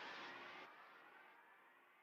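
Near silence: a faint tail fades away after a loud sound cuts off, dying out by the end.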